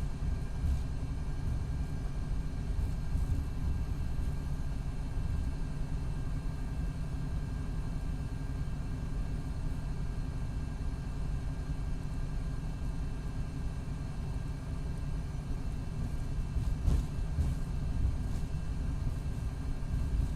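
2019 MCI D4500CT coach with a Cummins ISX12 diesel and an Allison B500R automatic transmission, running steadily with a low rumble. A few sharp knocks or rattles come near the end. The uploader says the transmission is in its last stages.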